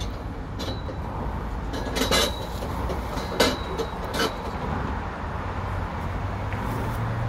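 Hand shears snipping at twigs of a flowering tree: about five short, sharp clicks in the first four seconds, over a steady low background rumble.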